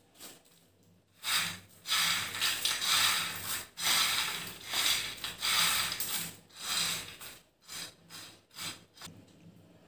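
A hand tossing crisp fried masala peanuts together with fried curry leaves on a plate: a run of dry rustling, rattling strokes, getting softer in the last couple of seconds.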